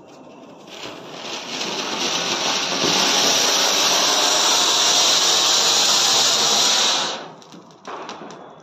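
Anar (flower-pot fountain firework) burning: a hiss that builds over the first couple of seconds as it starts spraying sparks, holds steady and loud, then cuts off about seven seconds in as the fountain burns out.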